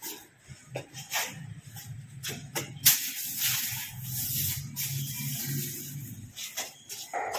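A small grass broom brushing and scraping over a concrete floor in short, irregular strokes, one sharper scrape about three seconds in, over a low hum that stops about six seconds in.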